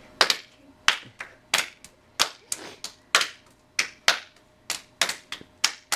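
Hand claps from two people playing a clapping game, palms clapping together and against each other's hands. A run of sharp claps at about two a second, slightly uneven.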